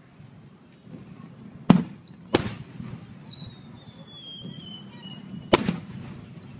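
Aerial firework shells bursting: three sharp booms, two close together about two seconds in and a third near the end. Between the later booms a thin high whistle glides slowly down in pitch.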